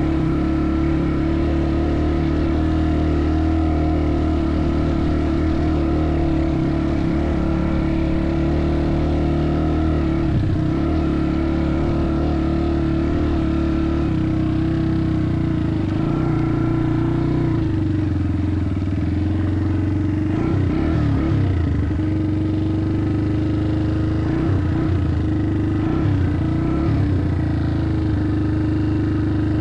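Motorcycle engine running steadily at a fairly constant speed, its note wavering a few times in the second half.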